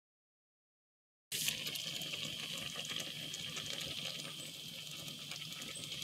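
A pot of milky bulgur porridge simmering on the stove: a steady bubbling hiss with small scattered pops. It starts suddenly about a second in, after silence.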